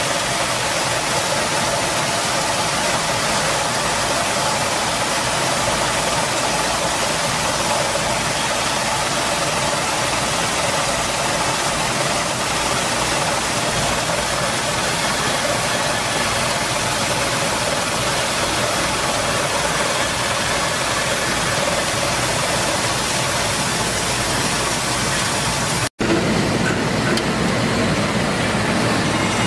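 6FT-PH corn peeling and grinding machine running steadily: a dense, even mechanical noise, with ground corn grits pouring from its outlet into a plastic basin. The sound cuts out for an instant near the end and then resumes, slightly changed.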